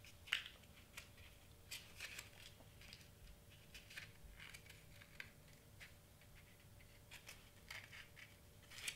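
Faint, scattered crackles and rustles of glitter cardstock being handled and pressed between the fingers as a small paper cone is shaped.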